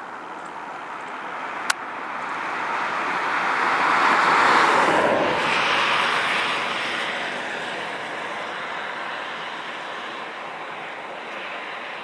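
A road vehicle driving past: its tyre and engine noise swells to a peak about four and a half seconds in, then slowly fades away. A single sharp click comes a little before two seconds in.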